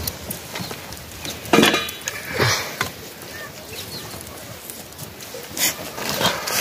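Steel cookware clinking and knocking a few times as a steel plate and a cooking pot are handled over a wood fire, one clink briefly ringing about a second and a half in.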